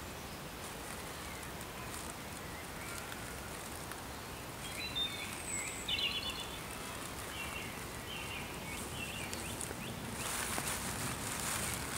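Woodland ambience at dusk: a steady background hiss with birds singing short chirping phrases, loudest a few seconds in. Near the end a louder stretch of rustling begins.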